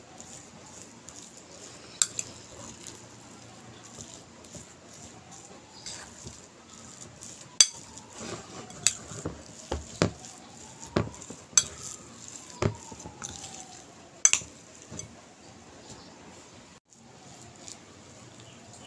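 A metal spoon stirring thick oat batter in a ceramic bowl: soft scraping, broken by sharp clinks of the spoon against the bowl. One clink comes early, then a run of them in the middle.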